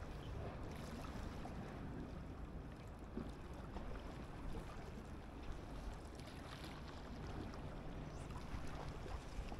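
Steady low hum of a distant boat engine over the wash of water against shore rocks, with light wind on the microphone.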